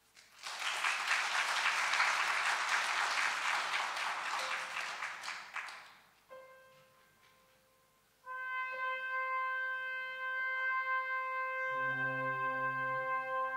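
Applause for about five seconds, fading out; then a brass quartet starts playing, one held note first, with lower instruments joining in sustained chords near the end.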